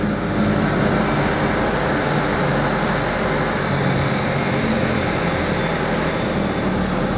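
Wara Wiri shuttle bus engine running and road noise, heard from inside the cabin while it drives: a steady hum and rumble with no change in pace.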